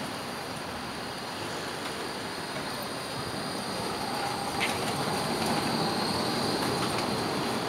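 An articulated low-floor tram rolling slowly round a tight curve, its wheels squealing faintly on the curved rails. The running noise grows louder about halfway through as the tram passes close by, with a single click about two-thirds of the way in.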